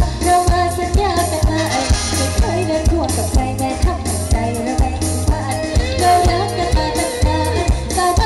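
Live amplified music from an Isan mor lam band's stage show: singing and melodic instruments over a steady drum beat of about two strokes a second.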